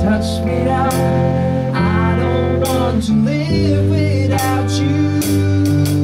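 Electric guitar and bass guitar playing a slow pop ballad's chords, the bass holding low notes that change every second or two, with a man's voice singing along in places.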